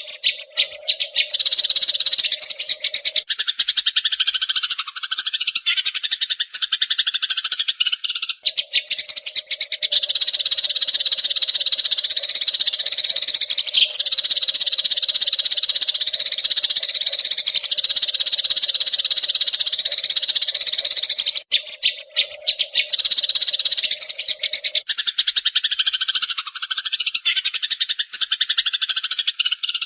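Eurasian tree sparrows chirping in a continuous, dense, rapid chatter. A steady lower tone runs beneath it and drops out twice, for a few seconds each time.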